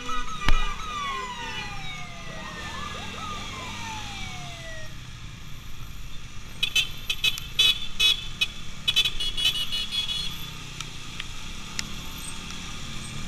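Escort sirens wailing, several overlapping tones sweeping down in pitch over the first five seconds, over the steady rumble of motorcycle engines and wind. A sharp thump comes about half a second in, and a run of short sharp chirps follows between about seven and ten seconds.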